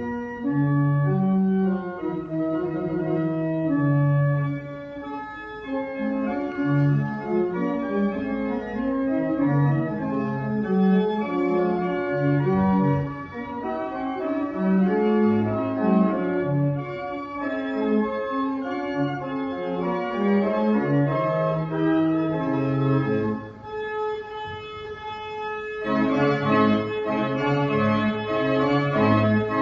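The 1886 Peter Conacher pipe organ playing a piece in full chords over a moving bass line. Near the end the sound turns brighter and fuller, with one upper note held throughout.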